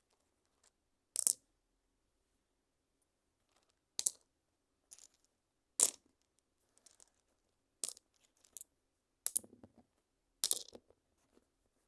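Stones clacking against one another: a sharp clack every second or two at irregular intervals, with two of the later clacks trailing into a short rattle.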